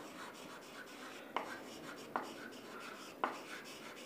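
Chalk writing on a chalkboard: faint scratching strokes, with three sharper taps of the chalk against the board spread through the middle.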